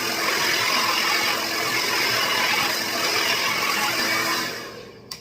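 Handheld hair dryer with a concentrator nozzle blowing on full force, a steady loud rush of air, that winds down about four and a half seconds in.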